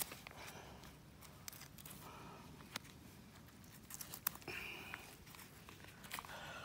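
Faint scattered clicks and rustling from rubber-gloved hands handling an opened snake carcass on a ridged rubber mat.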